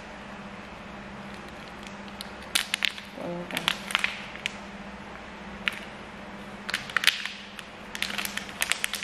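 Plastic snack sachet crinkling and crackling as it is squeezed open by hand, in two stretches of sharp rustles, over a steady low hum.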